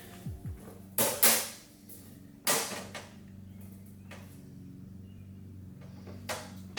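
Steel tool cart and its side-tray hardware being handled: a few sharp metal knocks and rattles, the loudest about a second in, with another about two and a half seconds in and one near the end.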